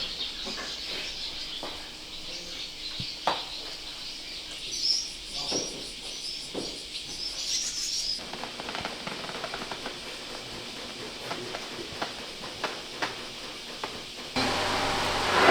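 Birds chirping, with a few light knocks or clicks scattered through. Near the end a louder steady rushing noise with a low hum cuts in suddenly.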